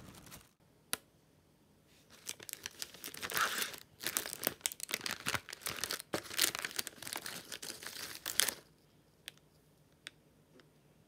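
Foil-lined plastic snack bag crinkling and tearing open in bursts of rustling for several seconds, stopping suddenly; a few faint clicks follow.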